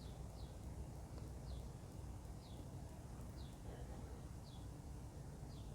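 Faint bird chirping, one short falling chirp about once a second, over a low steady room rumble.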